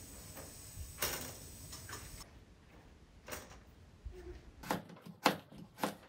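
Kitchen knife chopping through a chunk of Korean radish onto a cutting board: about five sharp knocks, roughly three a second, in the last second and a half.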